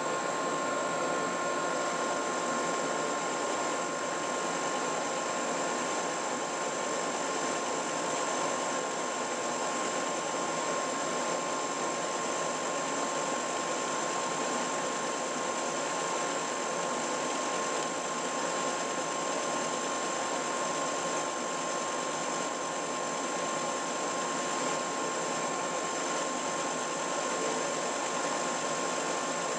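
Drill press motor running steadily with a small drum bit spinning in a slot in a wooden workpiece: an even machine hiss with a faint steady whine.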